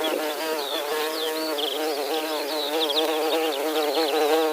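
Honeybee buzzing, a steady drone with a slightly wavering pitch, with faint high chirps above it. It cuts off suddenly at the end.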